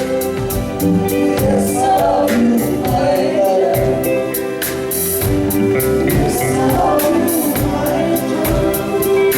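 Live band playing a song with singing over sustained chords and a steady drum beat.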